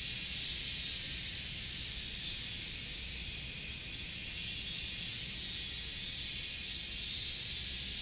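A dense, steady, high-pitched insect chorus with a cicada-like drone. It dips a little around the middle and swells again.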